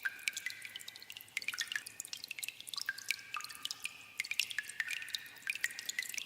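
Water dripping in a cave: many irregular drops landing several times a second, many with a brief ringing plink.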